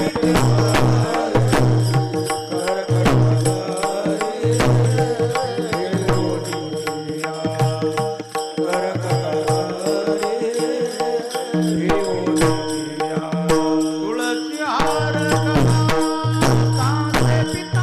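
Marathi devotional kirtan music: a male voice singing a sliding melody over hand-drum strokes and small hand cymbals keeping a steady beat, with sustained held tones underneath.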